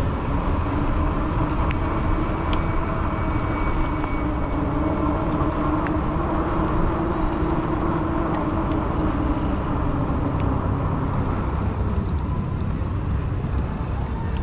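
Steady engine drone over a constant low rumble. The drone's pitch rises slightly, then eases back and fades near the end.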